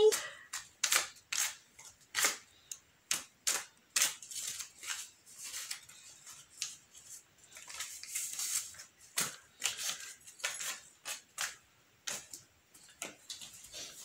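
Short, sharp sniffs and clicks in an irregular string, a few a second, from people tickling the insides of their noses with thin sticks to bring on a sneeze.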